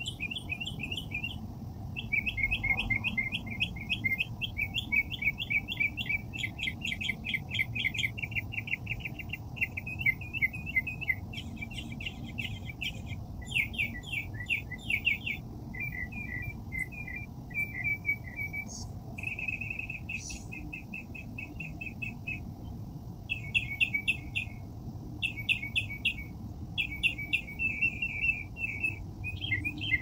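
Songbird chirping in fast trilled phrases, one after another with short gaps, over a steady low background rumble.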